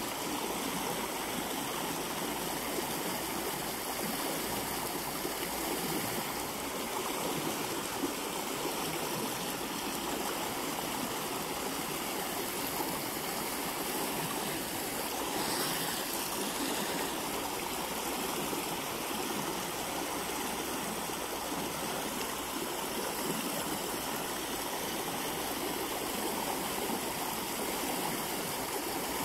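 Steady rush of a shallow, fast-flowing stream, even and unbroken.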